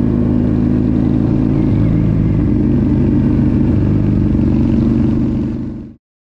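Harley-Davidson motorcycle's V-twin engine running loud and steady. The sound cuts off suddenly near the end.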